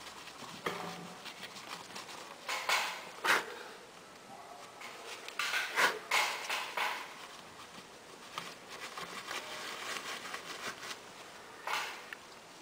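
A paper towel rustling and rubbing as dried thermal paste is wiped off a laptop processor, with a few small clicks and knocks of handling, coming irregularly.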